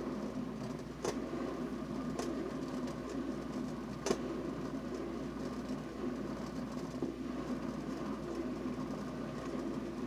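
Topwit glass electric kettle heating water near the boil: a steady rumble of bubbling water, with a few sharp ticks, the loudest about four seconds in.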